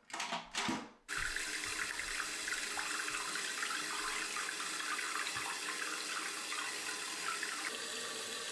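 A toilet tank filling: water rushing steadily through a newly installed Fluidmaster fill valve into the tank, starting abruptly about a second in.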